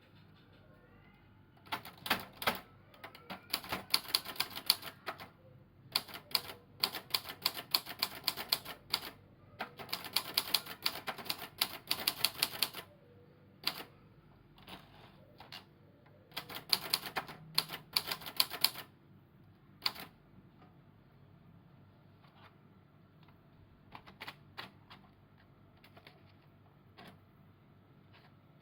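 Royal TA 240 typewriter keys striking in quick runs of rapid typing for the first half. A shorter run follows after a pause, then a few scattered, fainter keystrokes near the end.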